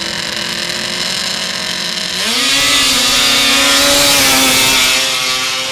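Two-stroke racing snowmobile engines running at the start line. About two seconds in, one launches and its engine revs up sharply and gets louder, holding high revs before easing near the end.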